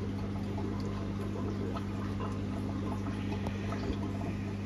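Steady low hum of aquarium pumps and filters, with a faint watery hiss.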